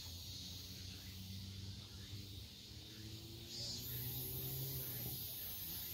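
Faint outdoor ambience: a steady low hum with a high, hissing insect buzz that comes in about four seconds in.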